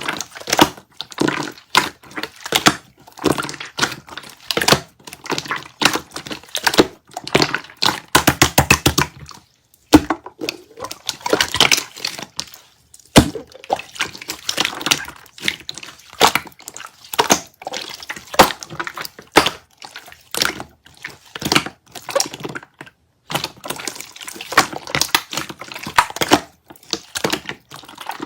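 Slime being squished and pressed by hand, making a dense stream of wet clicks, pops and crackles, with a quick run of rapid clicks about eight seconds in and two short pauses.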